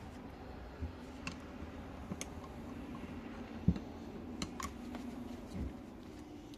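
Scattered light clicks and taps of hand tools and metal parts on a rusted brake caliper while it is handled and pried at, with one sharper knock a little past the middle, over a faint steady hum.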